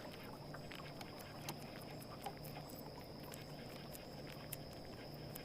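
Quiet outdoor ambience on a small boat: a faint steady high thin whine, a low hum that comes and goes, and scattered small clicks.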